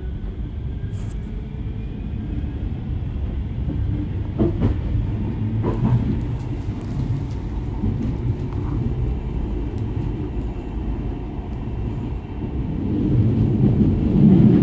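Manchester Metrolink tram running, a steady low rumble of wheels and running gear heard from inside the car, with a few light knocks and swelling louder near the end.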